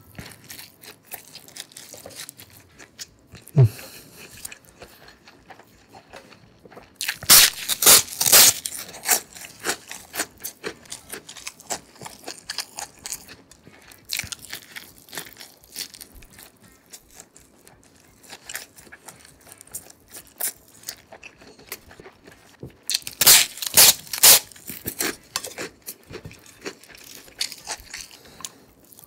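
Close-miked eating: a person chewing, with two bouts of loud, crisp crunching bites, one about seven seconds in and another about twenty-three seconds in, and quieter chewing and mouth sounds between. A single knock sounds a few seconds in.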